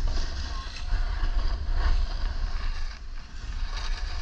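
Wind buffeting an action camera's microphone in a low rumble, over the rasping hiss of edges sliding and carving across packed snow on a downhill run.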